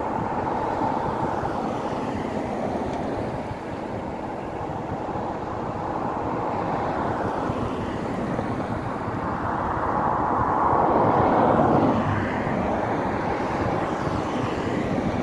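Cars driving past on a rain-wet road, their tyres hissing on the wet surface over a steady wash of noise. One passes loudest about ten to twelve seconds in, then fades.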